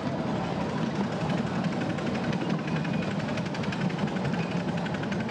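7¼-inch gauge miniature train running along its track, a steady rumble of wheels on rail with rapid, even clicking, heard from aboard the passenger cars.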